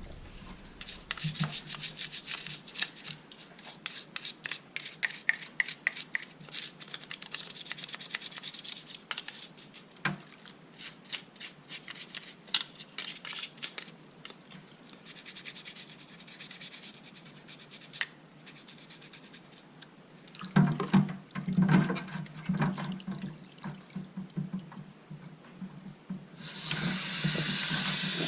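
Rubbing and scraping with many small clicks, coming and going, as small parts of a cordless screwdriver are handled and worked on. Near the end a steady hiss starts.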